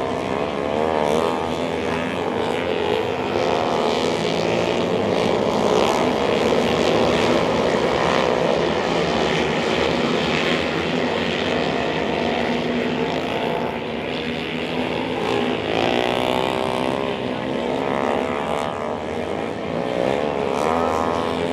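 A pack of single-cylinder four-stroke flat-track racing motorcycles (450cc Pro Singles) racing around the oval. Several engines rise and fall in pitch again and again as the riders back off into the turns and get back on the throttle down the straights.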